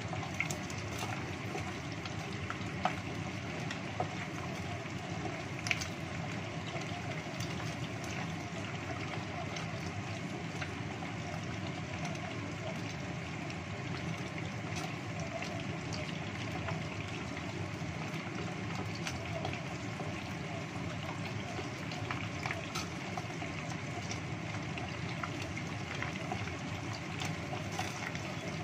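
Chicken wings in a tapioca-flour coating deep-frying in hot oil in a small saucepan: a steady bubbling sizzle, with a few sharp clicks in the first six seconds and fainter ones later.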